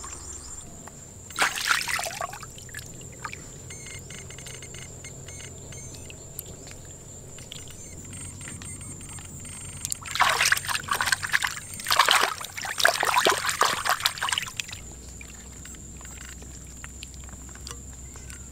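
Pond water splashing and sloshing as squid are washed by hand: a short splash about one and a half seconds in, then a longer stretch of splashing from about ten to fourteen seconds. A steady faint high whine runs underneath.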